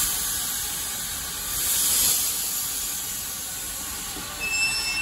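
Small steam tank locomotive venting steam in a steady hiss that swells about a second and a half in. A brief high-pitched tone sounds near the end.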